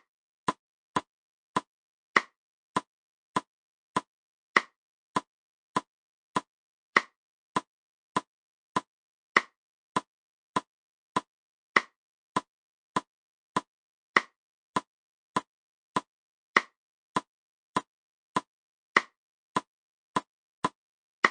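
Metronome ticking at 100 beats per minute, a sharp click about every 0.6 seconds, with every fourth click louder, marking the first beat of each bar of four.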